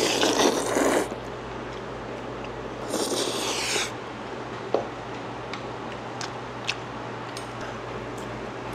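A person slurping noodles twice, each slurp about a second long, with a few faint small clicks afterwards.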